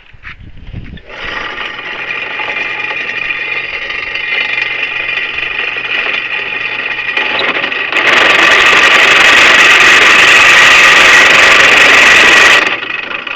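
Electric drill turning a new 5/8-inch bit into the work and fed slowly. It starts about a second in, gets much louder and harsher at about eight seconds as the bit cuts, and stops shortly before the end.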